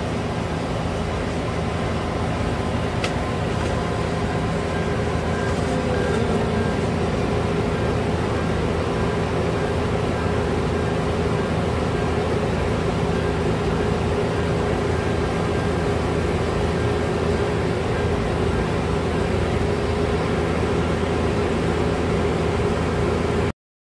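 Steady hum of the van's idling engine heard inside the cargo area, with several constant tones; it cuts off suddenly near the end.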